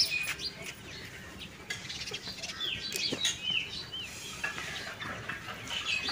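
A flock of birds chirping and calling in the trees, many short arched notes overlapping.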